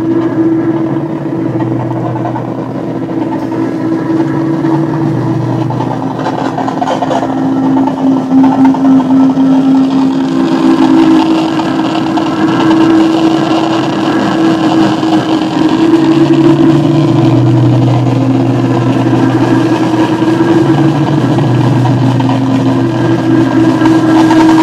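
Improvised free-noise music: a loud, dense wall of droning noise built on low sustained tones that slowly shift in pitch and swell.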